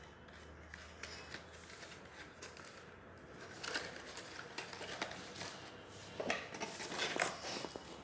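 Cardstock flaps of a paper explosion box card rustling and tapping as they are folded shut by hand. Faint at first, then scattered crisp paper clicks from about four seconds in.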